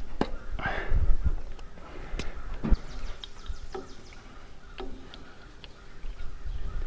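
Scattered sharp clicks and small knocks as hands work spark plug wires onto a tractor's distributor cap, rubber boots being pushed over the cap terminals, with a brief rustle near the start.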